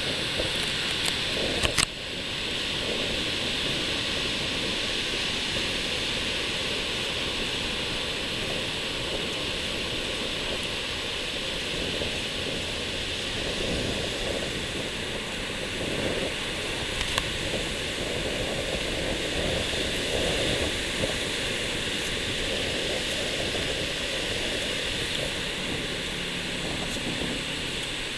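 Steady rushing noise of breaking ocean surf. A couple of sharp clicks stand out about two seconds in.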